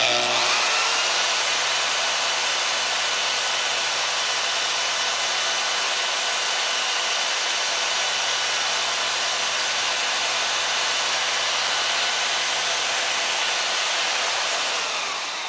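Bandsaw cutting a laminated Spectra-Ply blank. The motor spins up at the start, runs steadily with its blade in the cut, then winds down with falling pitch near the end.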